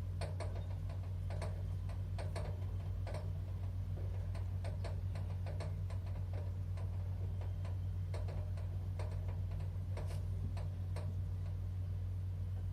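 Irregular light clicks, a few a second, over a steady low electrical hum.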